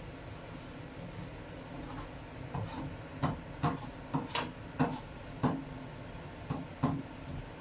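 Metal spatula scraping and knocking against a wok while stir-frying. About a dozen quick strokes start about two seconds in, over a steady hiss.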